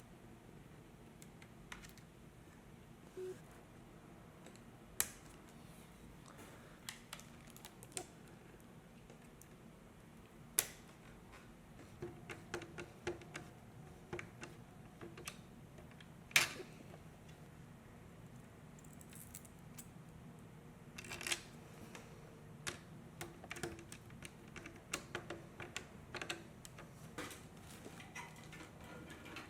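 Light clicks and taps of computer parts and small hardware being handled during a PC build. The taps are scattered, with the sharpest about five, ten and sixteen seconds in, and they come more often from about twenty seconds on.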